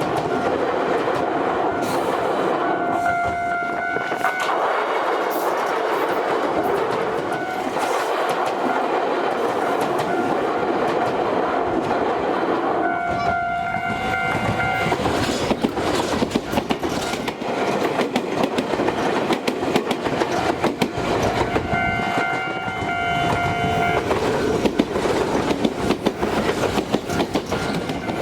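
An Iyo Railway Yokogawara Line train running over a level crossing, its wheels clattering over the rails. A steady pitched tone sounds three times, a second or two each time. The clatter grows choppier in the second half.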